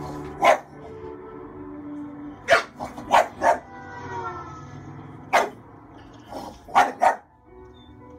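English bulldog barking in short barks, about nine in all in three bunches, over music playing from a television.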